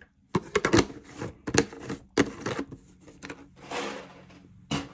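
Money being handled in a clear plastic bucket: a quick run of sharp clicks and taps, a short rustle about four seconds in, and one last tap near the end.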